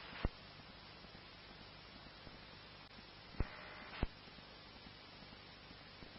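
Faint steady static hiss from a police radio scanner between transmissions. Sharp squelch clicks break it a quarter second in and again about three and a half seconds in, where a radio is keyed for about half a second with no voice before a second click closes it.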